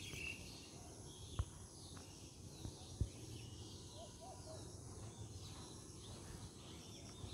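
Faint outdoor ambience: a steady high insect buzz with a few short bird chirps, and two sharp knocks, about a second and a half and three seconds in.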